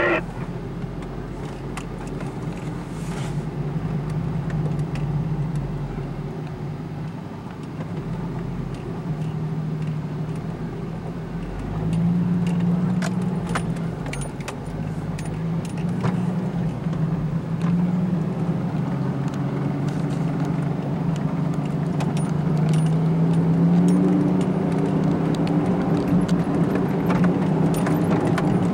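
Engine of a four-wheel-drive vehicle heard from inside the cab as it crawls along a rough dirt trail. The engine note rises and falls with the throttle and picks up about twelve seconds in, while loose items in the cab rattle and click over the bumps.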